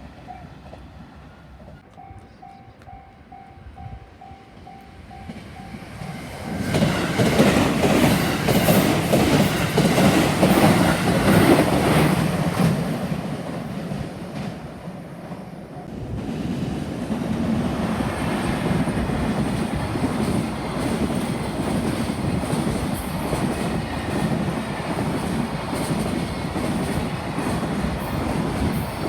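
A repeating level-crossing warning bell, then a train on the JR Tokaido Line arriving about six seconds in and passing with a loud rumble and clickety-clack of wheels on the rails. The rumble eases briefly about two-thirds of the way through, then carries on steadily as more cars roll by.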